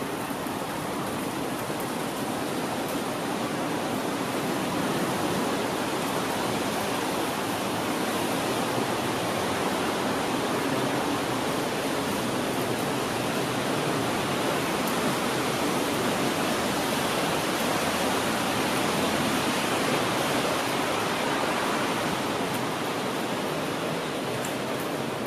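Rain falling steadily: an even hiss that swells a little midway.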